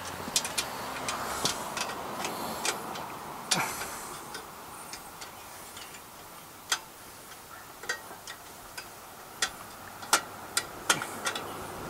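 Irregular sharp metal clicks and taps of a socket and bolts being worked by hand at the cylinder head of a small Briggs & Stratton engine, as the head bolts go back in.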